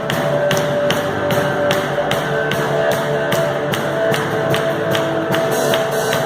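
Live band music, an instrumental passage without singing: guitar over held notes, with a steady ticking beat about three or four times a second.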